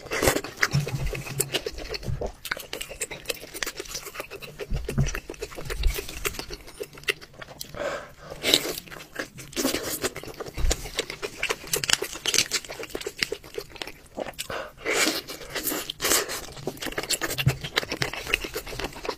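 Close-miked eating: slurping from a spoon, then biting, tearing and chewing braised chicken with wet mouth smacks. Irregular clicks and smacks come thick and fast throughout.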